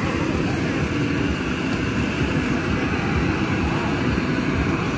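Hose-fed gas torch burning with a steady rushing noise, its flame aimed into a stacked pile of wooden logs to set them alight for charcoal.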